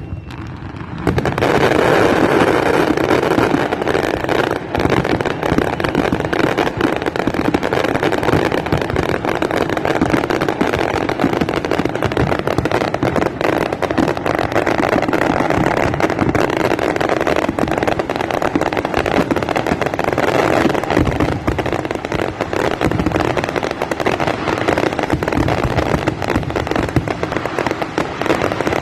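Fireworks display: a dense, continuous barrage of bangs and crackles, starting abruptly about a second in.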